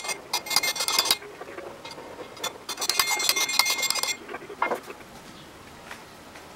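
Rapid metallic clinking with a ringing tone, in two bursts: one in the first second and another of about a second and a half that stops abruptly about four seconds in.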